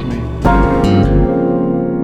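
Music: sustained keyboard chords with a deep bass note that comes in about half a second in and holds.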